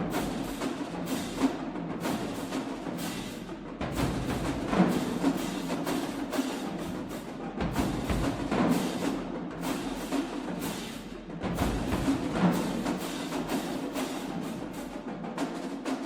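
College marching band drumline playing a fast percussion feature, dense sharp drum and rim hits in a steady rhythm.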